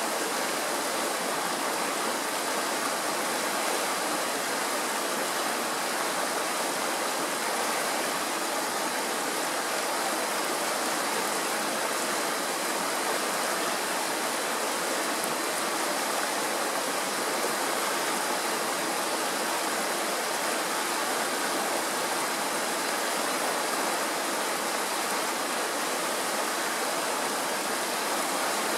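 Shallow mountain stream rushing over stones in small riffles: a steady, unbroken water rush.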